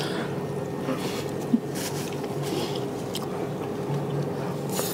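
A steady low electrical hum from a running appliance, with a sharp click about one and a half seconds in and a few brief rustles.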